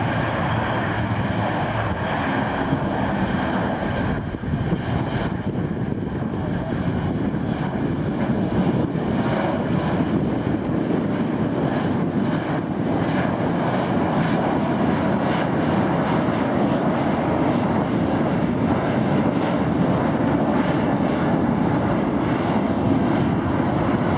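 Boeing 737-800 airliner's twin CFM56-7B turbofan engines running as it climbs steeply and banks overhead: a loud, steady jet noise with faint steady high tones above it.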